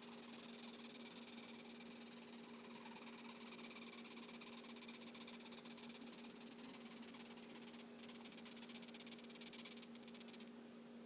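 Cow ant (velvet ant) stridulating: faint, rapid high-pitched squeaking chirps in a fast run of pulses, with a brief break about eight seconds in. This is the rasping squeak these wasps make when disturbed, a warning.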